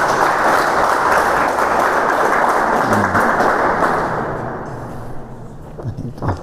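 Audience applauding, fading away after about four seconds.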